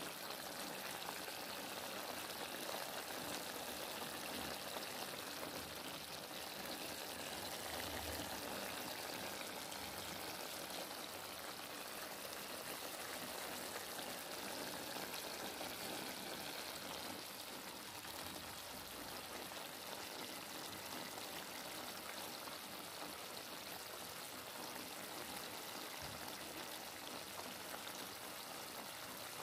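A pan of beef-skin stew simmering in its sauce: a steady bubbling, sizzling hiss.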